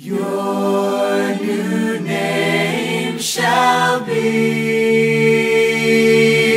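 Slow worship song, with voices holding long sung notes that change pitch every second or two.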